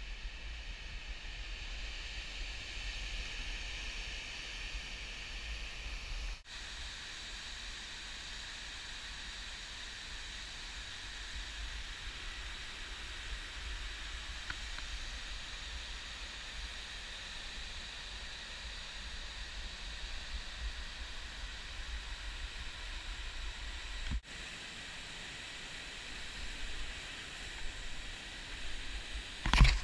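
Steady rushing hiss of whitewater and a waterfall on the Reuss river, with a few loud knocks near the end.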